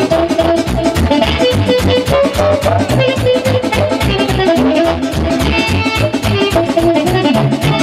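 Instrumental dance music with a fast, steady drum beat and bass under a melody line.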